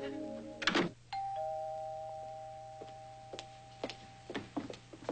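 Two-note ding-dong doorbell chime: a higher note, then a lower note, both ringing and slowly fading over about three seconds. A short music cue ends just before it, and a few footsteps follow.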